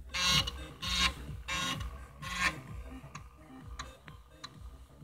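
Amiga 600's 3.5-inch floppy drive working: four short buzzing grinds of the head stepping in the first two and a half seconds, then single sharp clicks about every two-thirds of a second.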